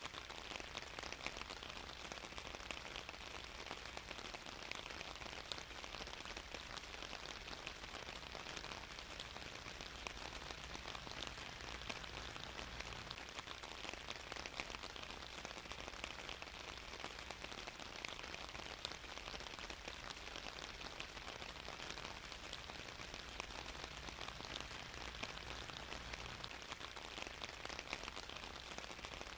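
Steady rain falling on a surface, a constant patter of many small drops.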